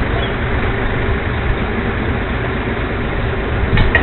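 Leach rear-loader garbage truck's diesel engine idling with a steady low rumble. There is one short sharp click near the end.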